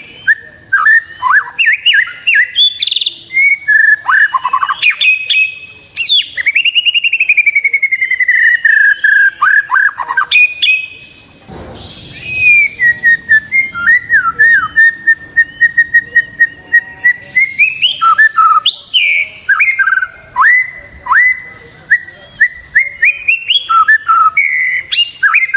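White-rumped shama (murai batu) singing a varied, continuous song of clear whistles, sweeping notes and rapid chips. About six seconds in comes a long falling whistle, and in the middle a run of quick even notes held at one pitch.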